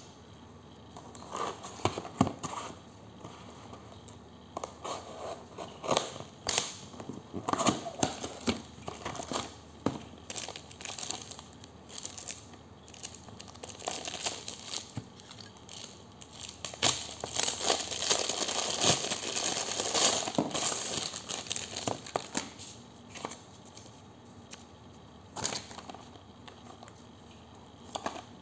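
Cardboard box and plastic packaging being handled and opened by hand: rustling, crinkling and tearing with scattered taps and knocks, and a longer stretch of steady crinkling about two-thirds of the way through.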